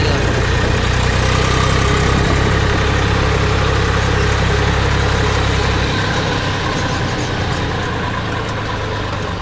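Eicher 380 Super DI tractor's three-cylinder diesel engine running steadily while driving, heard from the driver's seat. About six seconds in the engine note drops lower and gets a little quieter.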